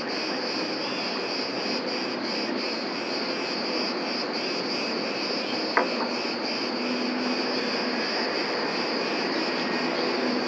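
Summer chorus of crickets chirring steadily in a high band, with one sharp click a little past halfway.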